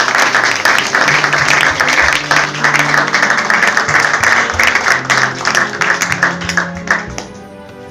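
Audience clapping over background music; the applause dies away about seven seconds in, leaving only the music.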